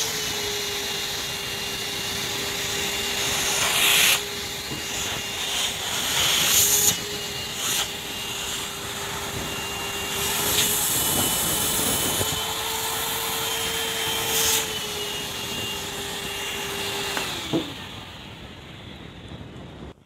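Vacuum cleaner running steadily with a high whine, sucking through a homemade cyclone dust separator on a plastic bucket, with several short bursts of rushing noise. About 17 seconds in the motor switches off and its whine falls as it winds down.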